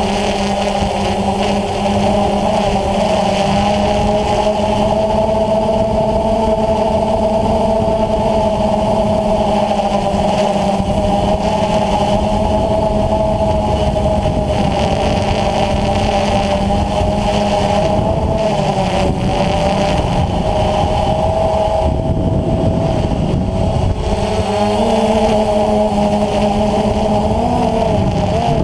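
DJI Phantom FC40 quadcopter's four electric motors and propellers humming steadily, heard from the GoPro mounted on the aircraft. The pitch wavers slightly and shifts briefly near the end as the drone manoeuvres.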